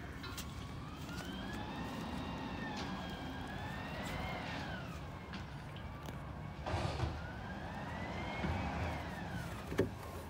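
A siren wailing in slow rises and falls, about one sweep every four seconds, over a low steady rumble.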